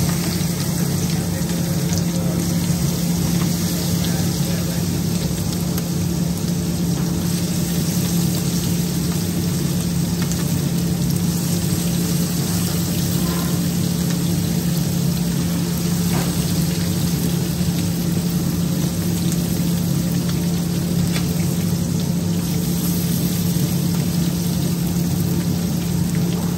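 Marinated chicken pieces sizzling as they shallow-fry in hot oil in two pans, a steady hiss with a steady low hum underneath.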